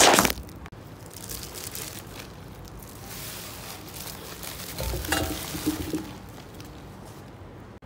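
Bubble wrap and plastic film crinkling loudly as stainless steel mixing bowls are unwrapped, ending sharply just after the start, followed by soft rustling of the plastic. About five seconds in, the wrapped steel bowls give a couple of light knocks with a short ring as they are handled.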